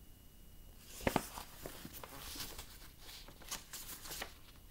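Book and paper being handled at a desk: a soft knock about a second in, then a run of light, irregular rustles and clicks.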